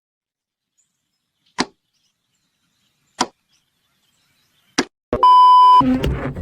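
Sharp single clicks at even intervals, one about every second and a half, in otherwise dead silence. Then a loud, steady electronic beep of one high pitch lasts about half a second and cuts off, and background noise sets in.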